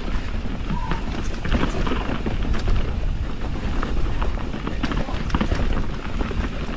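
Mountain bike descending a rough trail: wind buffets the action-camera microphone with a steady low rumble, while tyres, chain and frame rattle over the ground in many short knocks. A brief squeak sounds about a second in.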